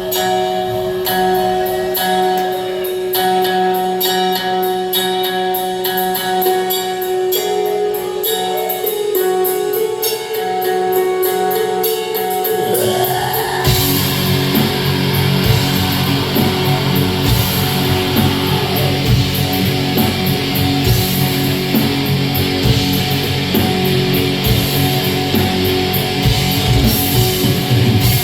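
Black metal band playing live: a sparser passage of sustained guitar notes over a quick, even beat, then about 13 seconds in the full band crashes in with dense distorted guitars and drums.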